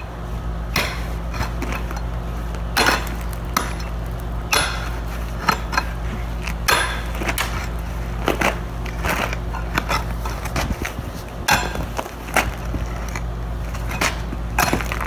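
Pickaxe chopping into a thin old asphalt driveway surface: irregular sharp strikes, roughly one a second, as chunks of asphalt break loose, over a steady low hum.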